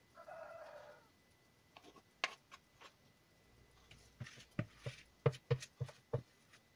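Metal spoon scraping and tapping cake batter out of a plastic mixing bowl into a bundt pan: a brief scrape near the start, then scattered clicks and knocks that come faster and heavier in the second half.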